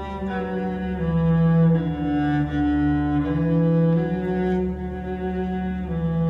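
Live string band, cello and fiddles, playing a slow melody of long bowed notes that change pitch every second or so, over a steady low drone.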